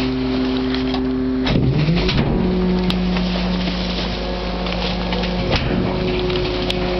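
Rear-loading garbage truck cycling its packer: the steady drone of the engine and hydraulics rises in pitch about one and a half seconds in, then holds at the higher pitch as the packer panel sweeps down into the bagged trash in the hopper. A single knock about five and a half seconds in.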